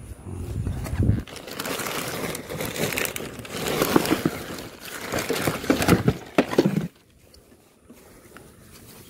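Plastic bags rustling and crinkling, with small knocks and clicks, as a hand rummages through a bucket of gear; it stops abruptly near the end.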